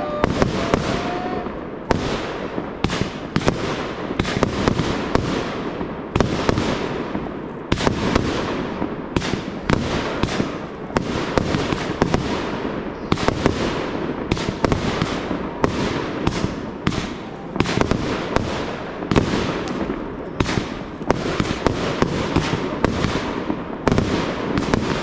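Fireworks display: a non-stop barrage of aerial shells bursting, with sharp bangs one or two a second over a continuous noisy bed.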